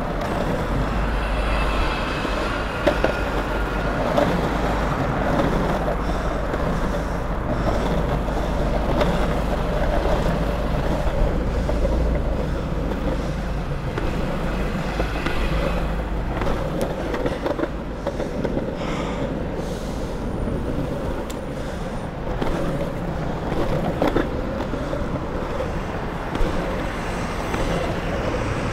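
Longboard wheels rolling steadily over asphalt with a low rumble and a constant hum, a few short clacks from bumps in the surface, under the noise of passing city traffic.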